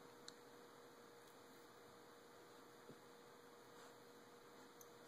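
Near silence: room tone with a faint steady hum and a couple of tiny clicks.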